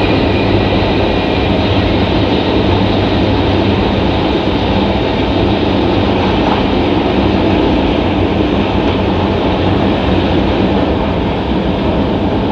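Steady running noise of an E5 series Shinkansen at high speed, heard inside the passenger cabin.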